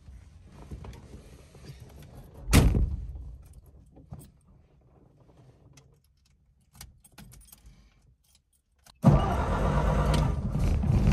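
A heavy thud about two and a half seconds in, the driver's door of a 1932 Ford Model B shutting, then faint key clicks. About nine seconds in, the car's four-cylinder engine starts suddenly and runs steadily at idle.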